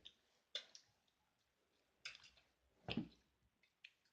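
Faint, scattered short clicks and squishy sounds, about five in four seconds, from a sweet being handled and eaten.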